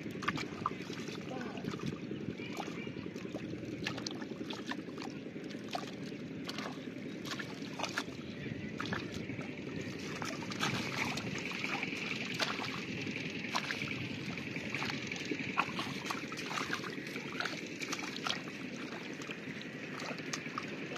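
Wet mud squelching and water sloshing as a person wades and crawls through shallow muddy water, many short irregular splashes and clicks over a steady low background noise.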